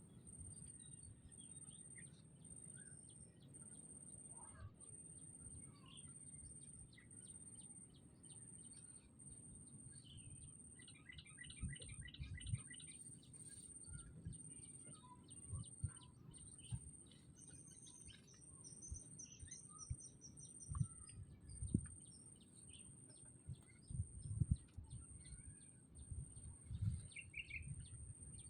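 Several wild birds chirping and calling faintly, with quick trilled runs of notes, over an evenly pulsing high tone and scattered low bumps.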